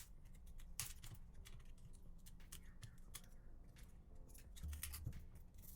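Faint, irregular light clicks and taps of a metal pry tool chipping shattered back glass off an iPhone.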